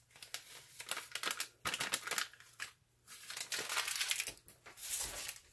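Plastic packet of colloidal oatmeal crinkling and rustling as it is shaken out over a bowl of bath salts, in irregular bursts with a short pause about halfway through.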